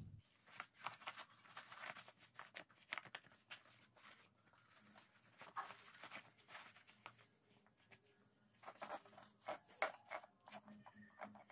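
Faint handling noises of a flat steel bar and work gloves on a concrete floor: scattered small clicks, taps and scrapes, with a few louder knocks near the end. A faint steady high-pitched whine runs from about halfway through.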